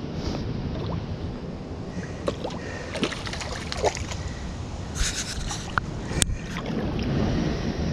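Small waves washing and fizzing over lava rocks, with wind rumbling on the microphone. A few sharp knocks and a short crackly rustle from the camera being handled come about five to six seconds in.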